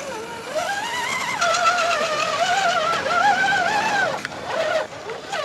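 Electric motor and gear whine of an RC scale Land Rover Defender crawler. It rises in pitch as the throttle opens, holds with a slight waver as the truck climbs the muddy slope, then drops away about four seconds in.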